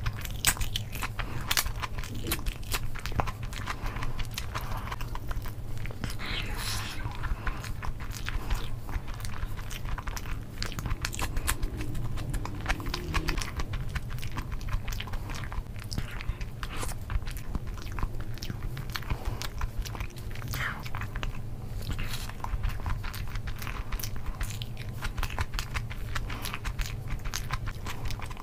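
Close-miked chewing and biting of rice, egg curry and crisp papad: a steady run of small crunches and wet clicks.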